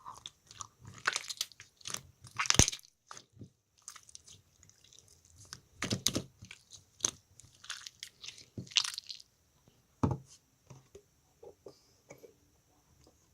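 Slime being squeezed and worked by hand, giving irregular squishy clicks and crackling pops, with louder clusters of pops a few times.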